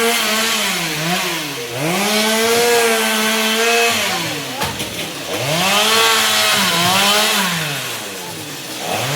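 Stihl MS 382 two-stroke chainsaw revved up and held at high speed several times, dropping back to a lower speed in between.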